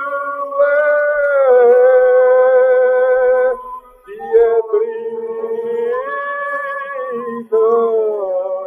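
Early 78 rpm gramophone recording of an Albanian Bektashi song: a man singing long, ornamented held phrases with a fyell, the Albanian shepherd's flute, accompanying. The phrases break off briefly about four seconds in and again near the end.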